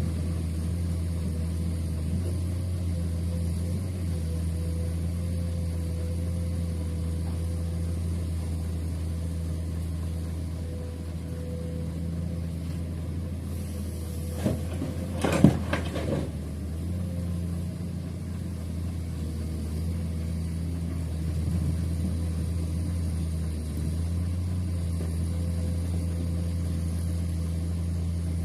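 Large diesel engine of heavy construction machinery running steadily at a low, even drone, with a few sharp clicks and knocks about halfway through.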